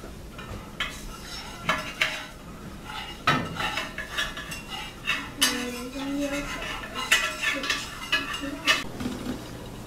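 Forks and a metal spatula clinking and scraping against a cast-iron skillet and plates while pancake is served and eaten: a run of irregular clinks and knocks, some briefly ringing.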